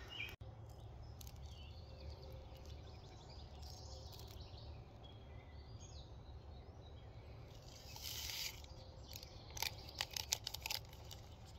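Faint birdsong, then the crinkle and crackle of a foil instant-coffee stick packet being handled and emptied into a plastic mug, in a few short crackling bursts in the last few seconds.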